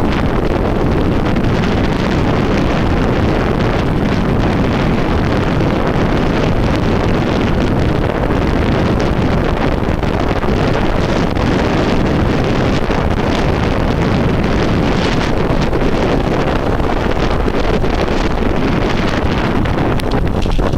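Wind buffeting a handlebar-mounted camera's microphone as a bicycle descends a mountain road into a headwind: a loud, steady low rumble, with a sharp tick near the end.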